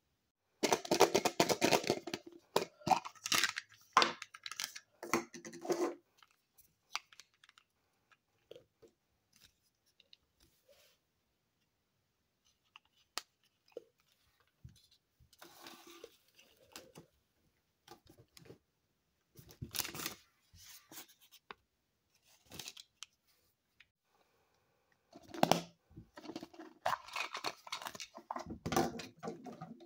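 Crinkling and tearing of a thin plastic wrapper as a small plastic toy is unwrapped and handled. The rustling comes in irregular bursts: a busy stretch at the start, scattered crackles in the middle, and another busy stretch near the end.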